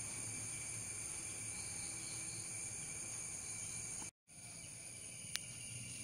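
Steady chorus of insects trilling, several high-pitched tones held without a break. The sound cuts out completely for a moment about four seconds in, and a single sharp click comes near the end.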